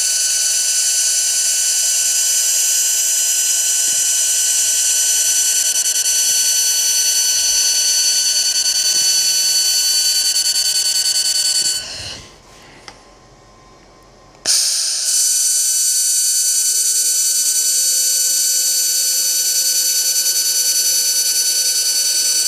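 xTool MetalFab handheld laser welder running while welding the end of a stainless steel exhaust silencer: a steady high-pitched whine over a hiss. It stops about halfway through, falls quiet for a couple of seconds as the weld pauses, then starts again.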